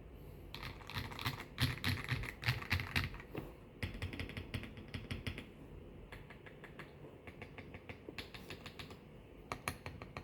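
MYNK65 mechanical keyboard being typed on, its Akko Snow Blue Grey switches and stabilizers lubed with Krytox 205g0: quick runs of key clacks broken by short pauses, heard through a phone's microphone.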